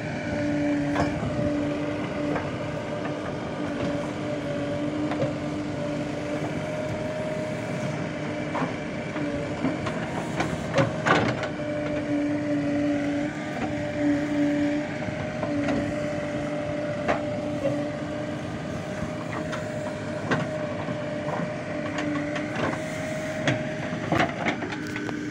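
Backhoe loader's diesel engine running steadily under load while the backhoe digs soil, with a steady hum that drops out briefly now and then. Scattered knocks and clatters from the bucket and falling earth, the loudest about eleven seconds in.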